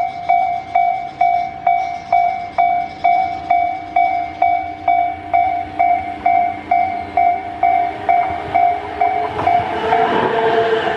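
Japanese level-crossing warning bell ringing its electronic ding about twice a second. Near the end a Tobu limited express train arrives at the crossing, its running noise and motor whine swelling until they cover the bell.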